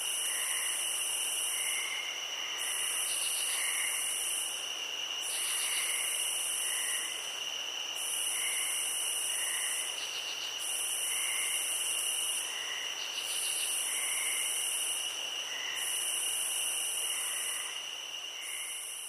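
Night insect chorus of crickets: a steady, high trilling runs under a shrill pulsing layer that swells and breaks off about once every second and a bit, with softer chirps in between. The chorus starts to fade near the end.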